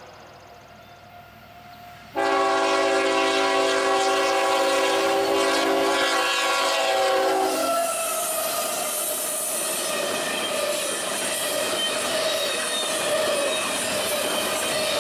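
Diesel locomotive air horn sounding one long chord of several notes, starting abruptly about two seconds in and cutting off about five seconds later. Then a freight train rolling along the rails with a steady squeal of wheels and a hiss.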